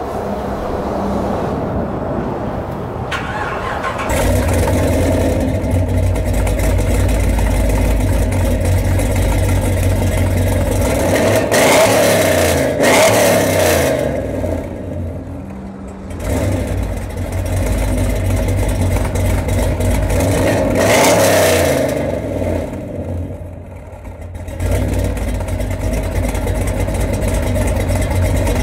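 A 2014 Camaro SS's 6.2 L L99 V8, with an aftermarket cam, headers and a Flowmaster exhaust, heard at the tailpipe: it catches about four seconds in and settles into an idle. It is then revved up and let fall back twice, once near the middle and once about two thirds of the way in, before returning to idle.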